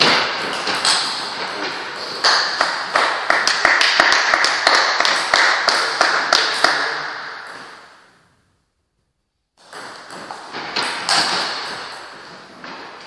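Table tennis rally: the ball clicking off the rackets and bouncing on the table in quick succession. The sound dies away for about a second, then a few single ball bounces follow.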